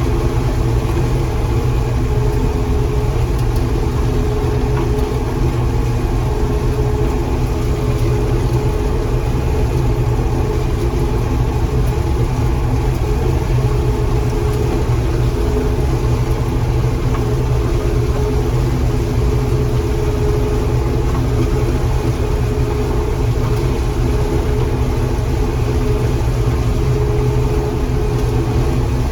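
John Deere 4400 combine running steadily while harvesting corn: an even, unchanging engine drone with no change in speed.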